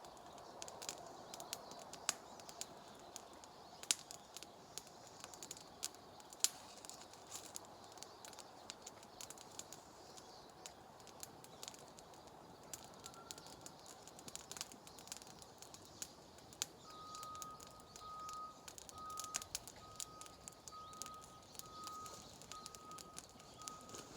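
Wood fire crackling, with scattered sharp pops at irregular intervals. In the last seven seconds a single high note repeats in short, evenly spaced pulses.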